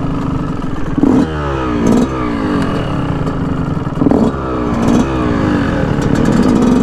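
Dirt bike engine running and revving in bursts, about four times, with the pitch dropping away after each burst.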